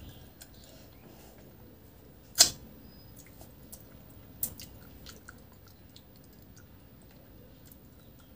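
Eating by hand: chewing and fingers mixing rice and fish curry on a plate, with a few sharp clicks, the loudest about two and a half seconds in.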